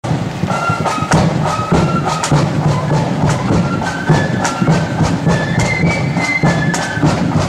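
Marching flute band playing: flutes carry a tune of short high notes over many quick snare drum strokes, with a bass drum keeping the beat.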